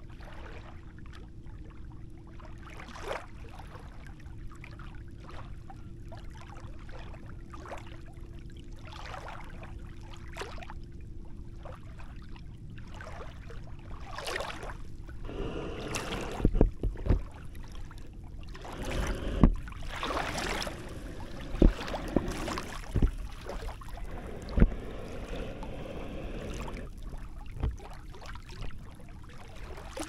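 Small sea waves lapping and sloshing at the shoreline right by the microphone. They are gentle at first; from about halfway, louder splashes break and wash in every second or two. A faint steady hum runs underneath for the first third.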